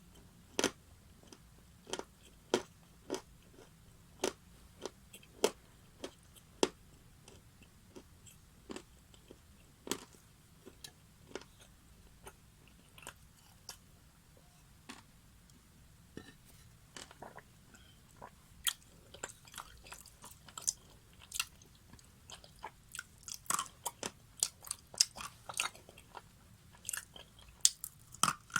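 Close-miked biting and chewing of something crunchy, sharp separate crunches about once a second at first, then thicker runs of quick crunches in the last third.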